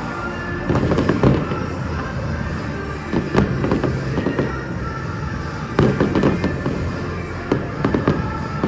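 Fireworks shells bursting in clusters of sharp bangs, with music playing underneath.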